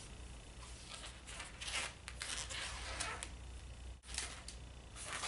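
Faint rubbing and scraping of an inflated latex 260 modelling balloon being handled, a few brief rubs spread through, over a low steady hum.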